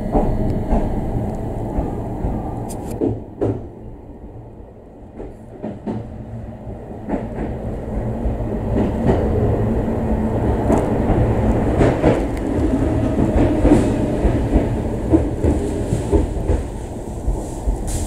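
Running noise of a Meitetsu 3500 series electric train heard from just behind the cab: a steady low rumble with scattered clacks of wheels on the rails. It eases off for a few seconds and then grows louder again in the second half.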